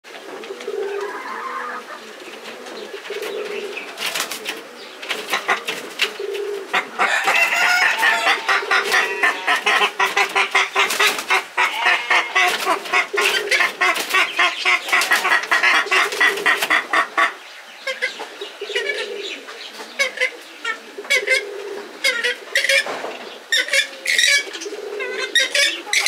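Several purple swamphens calling as they quarrel. A long, loud run of rapid repeated notes starts about a quarter of the way in and stops about two-thirds through, over lower, repeated notes, with scattered short calls before and after.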